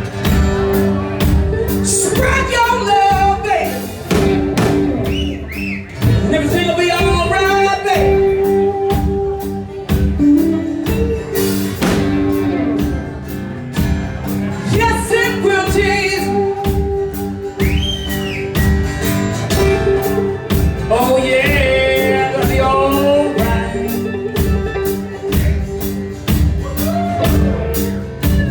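Blues-rock band playing: drum kit keeping a steady beat under guitars, with a bending melodic lead line over the top.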